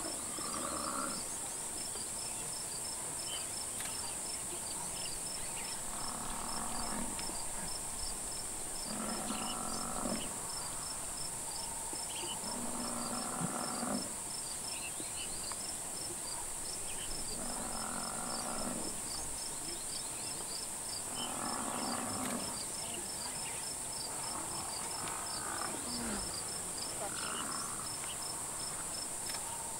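Cape buffalo giving low, moaning distress bellows about once every three to four seconds as lions attack it. Under the calls runs a steady high insect drone with fast chirping.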